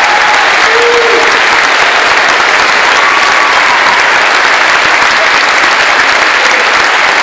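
Large theatre audience applauding steadily, a couple of short calls rising above the clapping.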